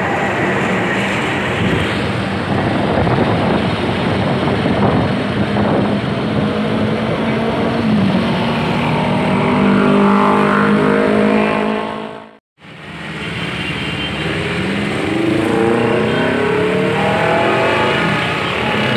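CC 201 diesel-electric locomotive's engine running as it passes close at slow speed, mixed with street traffic. The sound cuts out briefly about twelve seconds in, and then motorbikes and cars pull away with rising engine notes.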